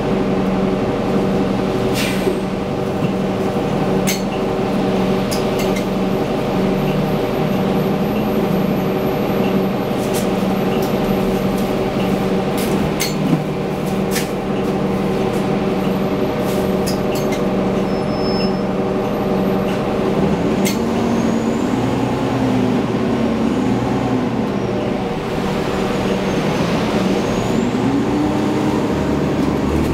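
Cabin sound of a 2010 Nova Bus LFS city bus: the engine and drivetrain hum at a steady pitch, with scattered rattles and clicks from the body. From about twenty seconds in, the note rises and falls several times as the bus works through its speeds.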